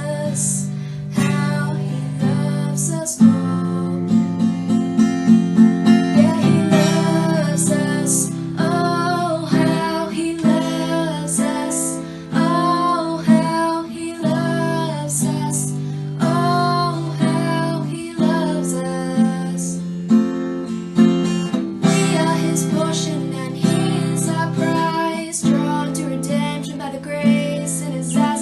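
Worship song played on strummed acoustic guitar with a voice singing the melody.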